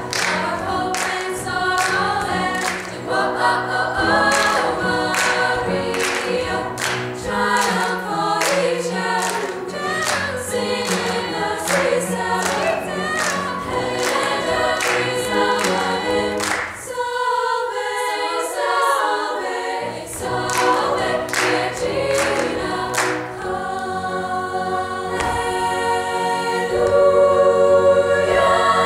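Treble choir of young women singing an upbeat gospel-style number, clapping steadily on the beat. About two thirds of the way in, the lower voices and the claps stop for about three seconds, then both come back. The singing is loudest near the end.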